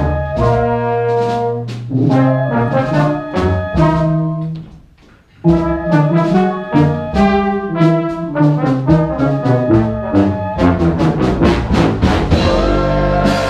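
Large brass and wind band playing live, with trombones, trumpets, tuba, saxophones and flutes over drums and keyboard in short rhythmic chords. The whole band stops for about a second just under halfway through and comes back in together, and near the end it moves to long held chords.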